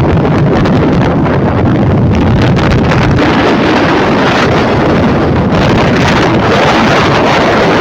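Wind buffeting the microphone aboard a ferry at sea, over the steady rush of the waves; loud and unbroken.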